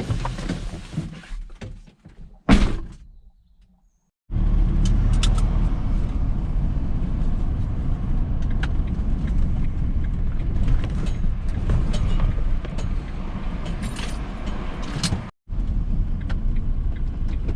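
Clatter of scrap being handled and a single loud bang about two and a half seconds in, like a vehicle door or load slamming. After a short gap, steady road and engine rumble inside a moving vehicle with light scattered clicks.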